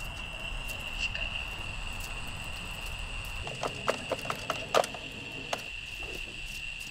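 Hands rummaging through a pile of junk: a quick run of small clicks and clatters of plastic and metal objects being handled, starting about halfway through. A steady high-pitched drone runs underneath.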